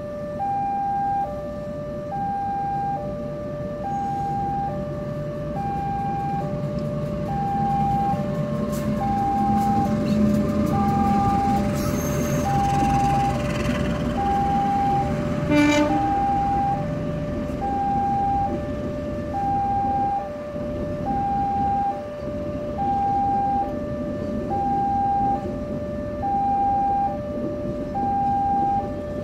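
Railway level-crossing warning alarm sounding a steady two-tone signal, high and low tones taking turns, while a diesel-hauled passenger train passes through the crossing. The CC203 locomotive's engine and the coaches' wheels rumble underneath, loudest through the middle, with a brief sharp sound about halfway through.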